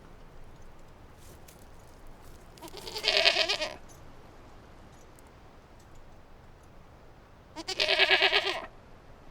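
Sheep bleating twice, a few seconds apart, each baa about a second long with a quavering tremble.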